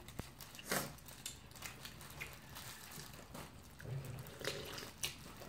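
Eating sounds: sauce-coated fried chicken being chewed and pulled apart by plastic-gloved hands, with glove crinkling and small irregular clicks and crackles, one louder crackle about a second in and another near the end.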